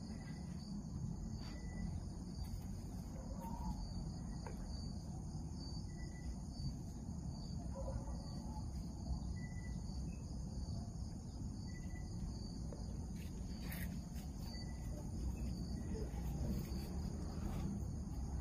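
Night insects, crickets, chirping: a steady high-pitched trill with a shorter, lower chirp repeating every second or two.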